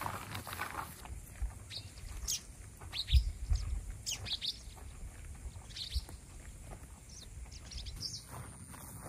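Birds chirping in short, scattered calls, with low thumps underneath, the loudest about three seconds in.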